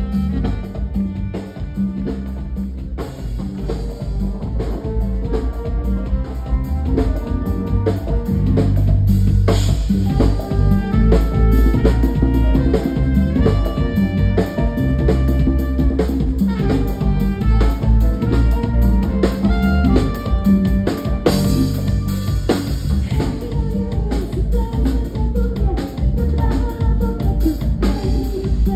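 Live band playing an instrumental stretch: drum kit and hand drums keep a steady beat under electric bass, keyboard and trumpet. The music gets fuller and louder about ten seconds in.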